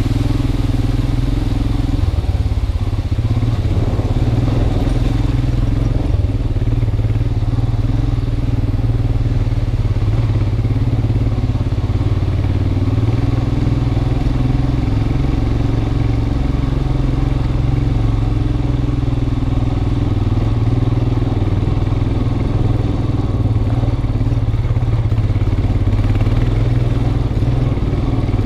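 Motorcycle engine running steadily at a low, even pitch while the bike is ridden along a rough dirt track.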